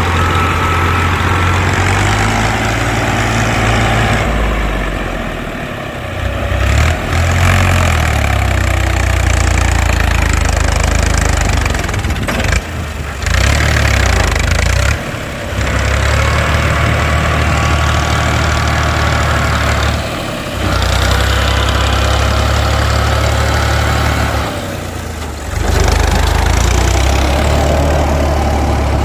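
Diesel tractor engine running hard under load, with its note dropping briefly five times, as the loaded trolley is hauled out of the mud.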